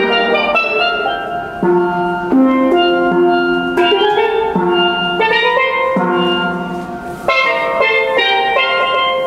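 Steel pan (steel drum) played as a continuous melody of quick ringing metallic notes.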